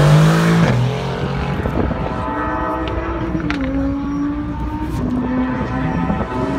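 Sports car engines on a track: a Mercedes-AMG GT's twin-turbo V8 accelerating past close by, its rising note breaking off in a gear change less than a second in. Other engines run on behind it, dropping in pitch midway, and one starts rising again near the end.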